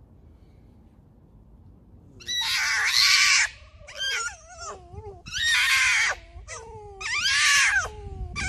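Red foxes squabbling over food: starting about two seconds in, three loud, harsh squealing calls, each trailing off into a wavering whine that falls in pitch.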